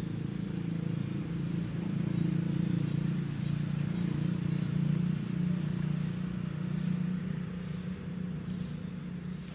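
Low, steady engine rumble of a nearby motor vehicle running, swelling a little in the middle and easing off near the end.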